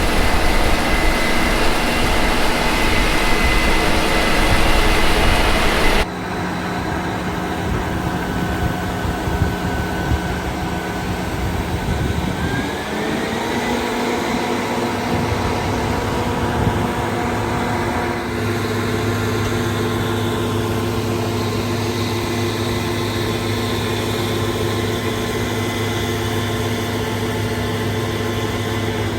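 Heavy diesel harvest machinery running with a steady engine drone. The sound changes abruptly about six seconds in, and a little after twelve seconds an engine rises smoothly in pitch as it speeds up, then holds there.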